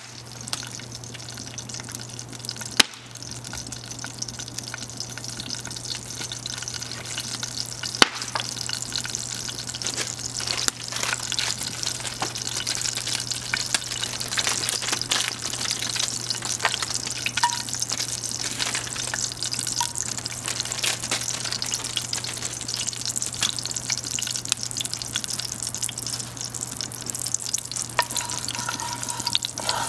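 Oil sizzling and crackling in a cast-iron Dutch oven as spices fry, the sizzle getting louder about a third of the way in, with a couple of sharp pops in the first few seconds. Near the end a wooden spatula stirs through the pot.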